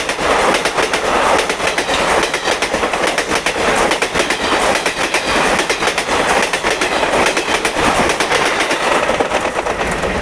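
Train carriages passing at speed close by, with a continuous rushing rattle and a rapid clatter of wheels over rail joints.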